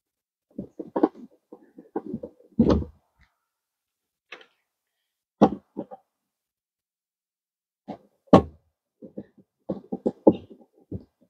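Irregular short knocks, clicks and scrapes of hardware and a hand tool against the plastic drum of a compost tumbler being assembled. They come in two busy spells, with the loudest knocks about two and a half seconds in and a little past eight seconds.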